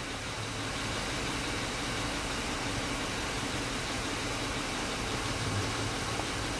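2005 Honda Odyssey's 3.5-litre V6 idling steadily under a constant hiss. The engine has a confirmed blown head gasket.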